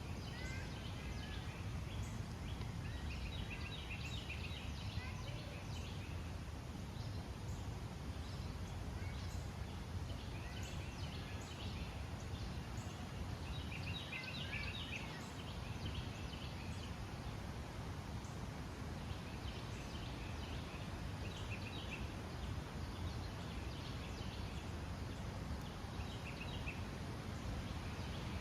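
Small songbirds chirping in short, repeated bursts, over a steady low background rumble.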